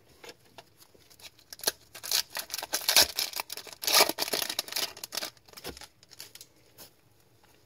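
Foil wrapper of an Upper Deck MVP hockey card pack being torn open and crinkled by hand, in a run of crackling rips that are loudest about three and four seconds in.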